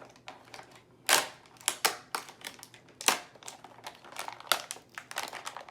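A plastic toy package being handled and opened by hand: irregular crinkling and crackling with sharp clicks, the loudest about a second, three seconds and four and a half seconds in.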